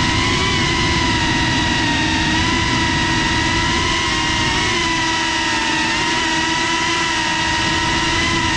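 GEPRC CineLog 35 cinewhoop FPV drone's motors and ducted 3.5-inch propellers whining steadily, the pitch wavering slightly up and down with throttle, over a low rumbling noise.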